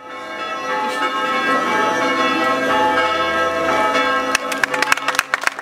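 Church bells ringing, fading in, with many overlapping ringing tones. About four seconds in, sharp hand claps of applause start over them.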